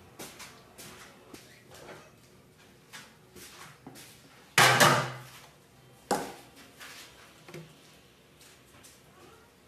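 Kitchen handling noises: scattered knocks and taps of containers and cookware being picked up and set down, with a loud clatter about halfway through and another sharp knock a second and a half later.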